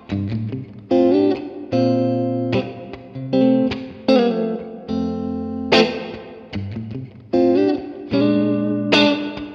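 Fender Stratocaster electric guitar through a Fender Super Reverb amp, playing a soul-style part: chords and double stops struck about once a second, each ringing out and dying away, with a few notes slid into.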